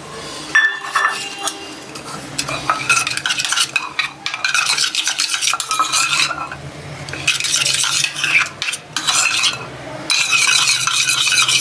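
Spoon stirring and scraping around a small dish, mixing powdered long pepper into honey and ginger juice, in bouts of clinking scrapes with brief pauses.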